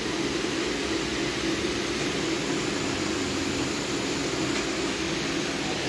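Steady mechanical drone with an even hum, like a running fan or machine, with no change in pitch or level.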